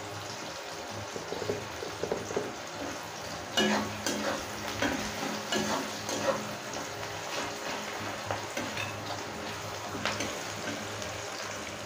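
Sliced onions sizzling steadily as they fry in oil in a metal kadai, with a metal spatula scraping and tapping against the pan as they are stirred from about three and a half seconds in.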